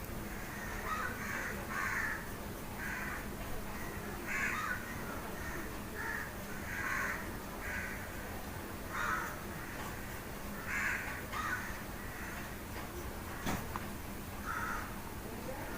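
Birds calling in the background: short calls repeated about once a second over a steady low hum. There is one sharp click about 13 seconds in.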